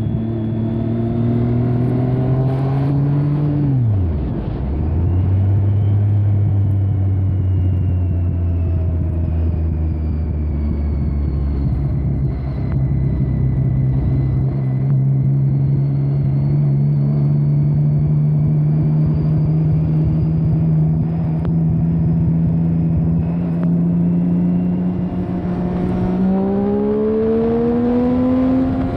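Triumph Street Triple inline three-cylinder engine under way, heard muffled from a phone in the rider's jacket pocket. The revs climb, fall sharply about four seconds in, hold steady and low for about ten seconds, then rise slowly and climb quicker near the end.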